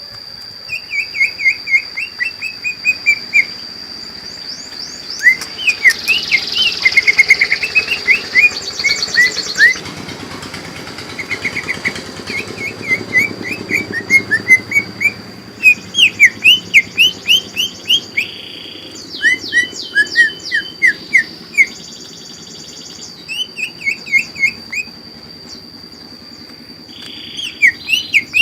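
Green leafbird (cucak ijo) singing: runs of quick rising chirps, several a second, in phrases broken by short pauses, with higher sharp notes mixed in. A steady thin high tone runs underneath.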